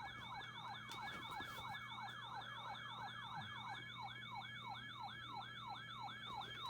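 Weather alert radio's electronic siren alarm: a fast yelping wail that repeatedly falls in pitch and jumps back up, about three and a half times a second, over a faint steady hum.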